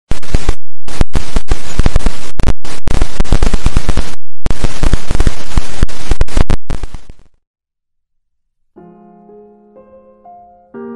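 Loud crackling static noise that cuts out briefly several times and fades away about seven seconds in. After a short silence, a piano begins playing single notes.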